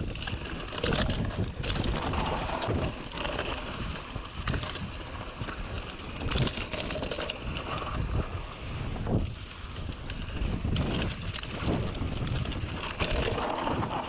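Mountain bike descending a dirt trail: wind buffeting the action camera's microphone over steady tyre noise, with frequent sharp knocks and rattles as the bike hits bumps.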